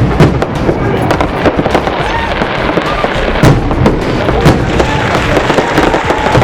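Fireworks going off: a string of sharp, irregular bangs and cracks, two of them louder about three and a half and four and a half seconds in, over a background of crowd voices.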